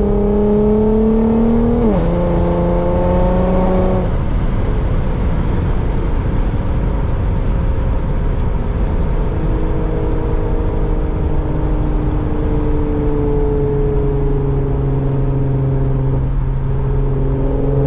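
Infiniti Q50's V6 engine and loud exhaust under acceleration, rising in pitch, dropping at a gear change about two seconds in and rising again. About four seconds in it lets off, and the car cruises with a steady road roar and a low, steady exhaust drone.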